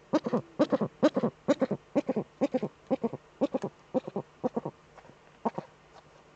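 Eurasian eagle-owl cackling in its nest scrape: a rapid run of short pitched calls, several a second, that comes in clusters and thins out to one last single call about five seconds in.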